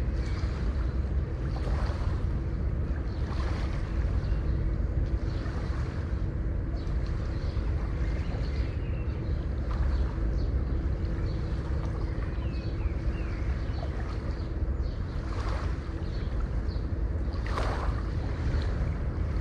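Ocean surf: a steady low rumble of waves with wind, with waves breaking in irregular swells every few seconds.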